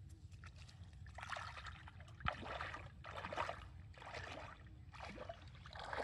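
Bare feet wading through shallow pond water, a splash with each step about once a second.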